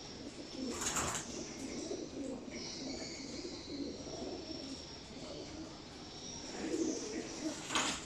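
Homing pigeons cooing throughout, a continuous low warbling murmur. Two short bursts of noise break in, about a second in and again near the end.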